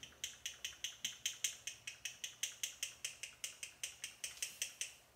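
A fast, even run of light mechanical clicks, about five or six a second, like a ratchet, stopping shortly before the end.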